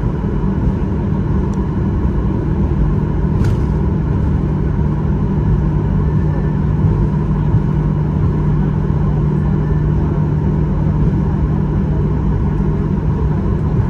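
Airliner cabin noise while taxiing: the engines running steadily at taxi power, heard from inside the cabin as a constant low rumble with a steady hum.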